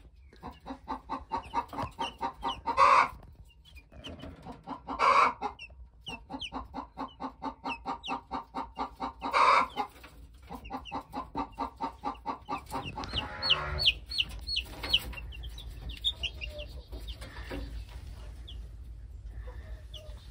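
A brooder full of baby chicks peeping, a rapid run of calls at about four or five a second, with a few louder calls and some short, high, falling chirps partway through.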